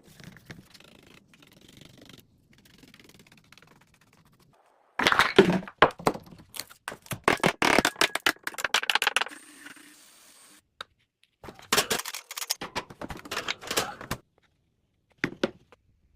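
Two runs of rapid, clattering taps and knocks from woodworking handwork, each lasting a few seconds, with faint rustling before them and one short knock near the end.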